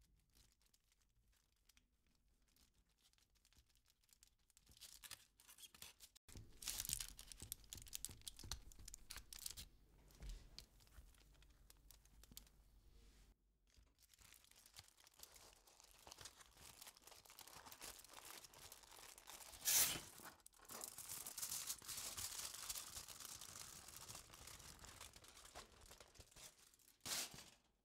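Aluminium foil crinkling and crackling as it is handled and peeled away from a baked sponge cake. The crackling starts a few seconds in, with louder crackles about two-thirds of the way through and again near the end.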